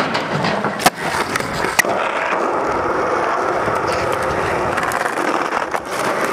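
Skateboard: a few sharp clacks of the board in the first two seconds, then urethane wheels rolling steadily over rough asphalt, with more clacks near the end.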